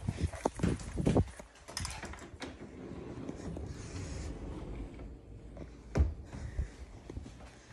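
Handling noise from a phone being carried and moved about: rubbing and rustling against clothing, with several knocks in the first second or so and one sharp thump about six seconds in.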